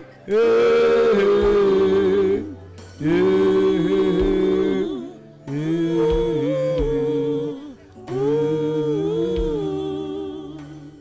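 A worship song sung into a church PA, in four phrases of about two seconds each with short breaks between, over a low sustained accompaniment.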